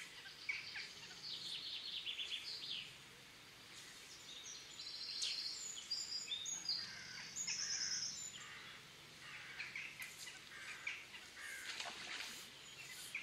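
Songbirds singing, with rapid trills and short chirping phrases. The song is busiest in the first half, eases off about eight seconds in, and picks up again near the end.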